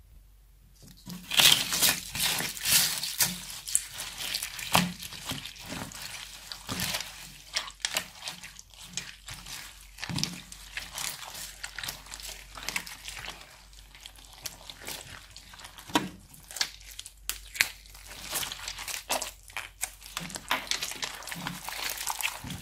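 Crunchy slime being squeezed and kneaded by hand: a dense run of crackles and small pops that starts about a second in.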